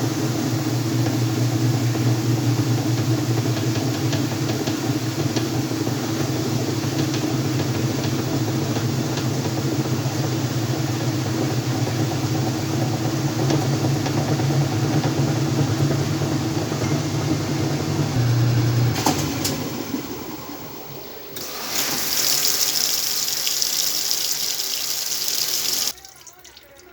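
Whirlpool washing machine running with a steady motor hum, which dies away about twenty seconds in. Then water rushes into the tub for a few seconds and cuts off shortly before the end.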